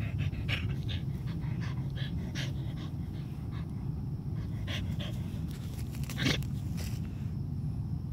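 A dog panting as it rolls on its back in the grass, short breaths about two to three a second, with one louder breath about six seconds in.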